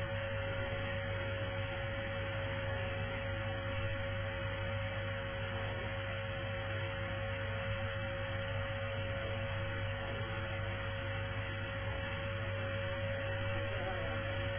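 Vacuum cleaner running steadily, a constant motor whine over the rush of air.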